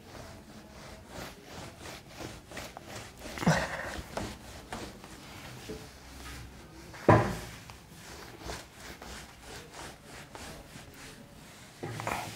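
Whiteboard duster rubbing across a whiteboard in quick, repeated wiping strokes. Two sharp knocks come about three and a half and about seven seconds in, the second the loudest.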